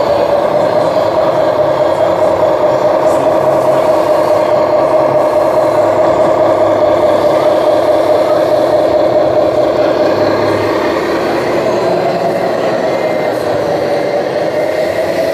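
Remote-controlled MAN Highline model truck running, its engine sound module giving a steady diesel-like hum. In the last few seconds the pitch wavers slightly higher, as with a change of throttle.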